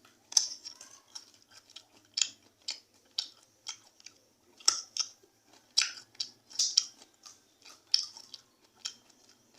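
Someone chewing crisp, crunchy papaya with their mouth, a quick irregular run of sharp crunches.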